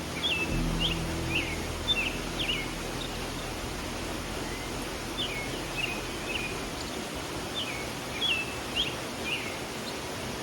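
A songbird singing short phrases of quick chirped, down-slurred notes in two bouts, over the steady rush of a flowing stream.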